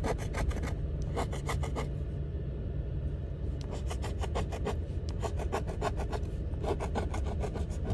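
A coin scratching the coating off a scratch-off lottery ticket in rapid back-and-forth strokes, easing off briefly about two seconds in before picking up again.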